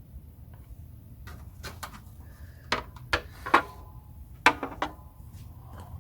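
Scattered clicks and knocks of a vintage radio's case being handled, the sharpest about three and a half and four and a half seconds in.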